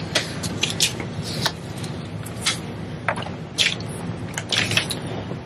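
Paper crackling and rustling in a quick, irregular string of sharp crinkles as a freshly heat-pressed chenille rug is handled and lifted off the butcher paper on a heat press, over a low steady hum.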